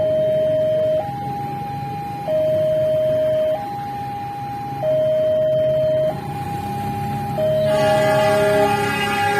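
Railway level-crossing warning alarm sounding a two-tone signal that alternates between a lower and a higher pitch about every 1.3 seconds, over a low rumble that grows toward the end. About three-quarters of the way in, a container freight train's horn starts a long, loud blast.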